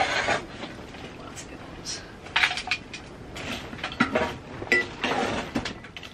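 Metal ash tool scraping and clinking inside a small steel wood stove's firebox while hot coals and spent ash are raked out: a run of sharp clinks and knocks with a couple of longer scrapes.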